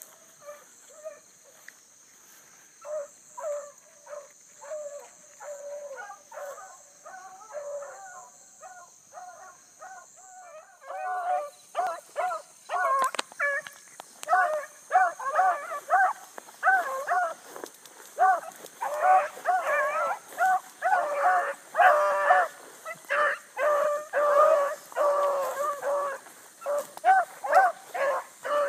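Bluetick coonhounds baying on a running rabbit's trail, short repeated barks about two a second. The baying grows louder and busier about eleven seconds in as the hounds come closer.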